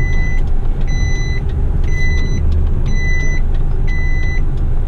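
Heavy rigid truck's reversing alarm beeping about once a second over the steady low drone of its diesel engine as the truck backs up.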